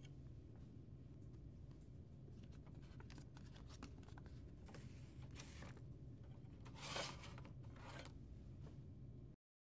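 Sheets of paper sliding and rustling against the plastic multipurpose feeder tray of a Lexmark XM7355 printer, with faint clicks over a low room hum; the loudest rustle comes about seven seconds in. The sound cuts off abruptly near the end.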